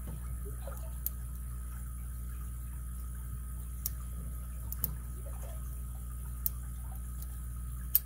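Pick and tension wrench working the pin stack of a Best padlock during single-pin picking: a few faint, sparse metallic clicks over several seconds, and a sharper click at the end as the lock gives and opens.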